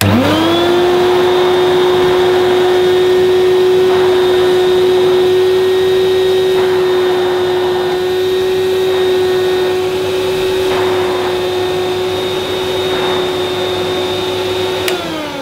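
A 1984 Hoover Portapower S1126 canister vacuum cleaner switched on, its motor spinning up within a fraction of a second to a loud, steady whine as the floor tool is worked over carpet to pick up debris. Near the end it is switched off with a click and the motor winds down, falling in pitch.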